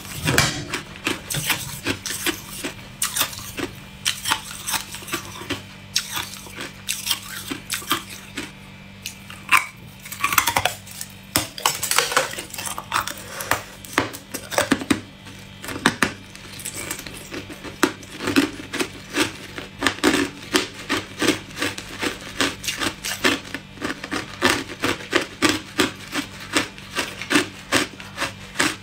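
Hard clear ice being bitten and chewed close to the microphone: a fast, uneven run of sharp crunches and cracks, several a second.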